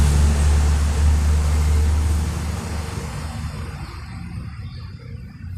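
A motor vehicle's low engine hum with road noise, fading away over the last three seconds as it passes.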